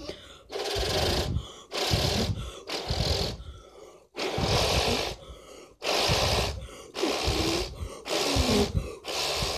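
Short, hard puffs of breath blown onto the edge of a light-up fidget spinner to keep it spinning, about eight puffs at roughly one a second, each a loud rush of air close to the microphone.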